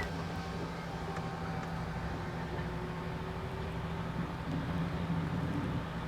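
Lorry engine and road noise heard inside the cab while driving: a steady low drone.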